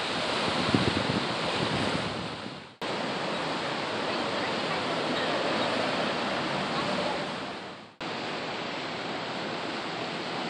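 Steady rush of a rain-swollen river running high and fast, with wind buffeting the microphone in the first couple of seconds. The sound dips away and cuts back in twice, about three and eight seconds in.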